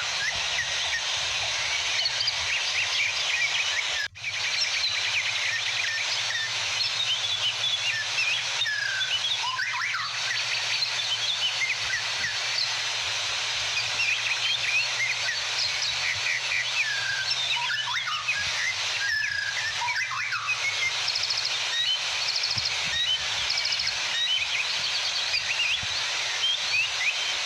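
Many small birds chirping and singing in quick, overlapping calls over the steady rush of a waterfall. There is a brief gap in the sound about four seconds in.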